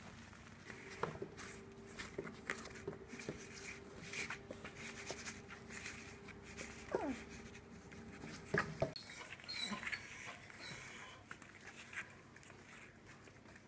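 Four-week-old puppies playing with toys on a rubber mat: scattered clicks, knocks and scuffles of paws and toys. One short falling whine about seven seconds in, and a few high squeaks a little later. A steady hum runs under the first two thirds.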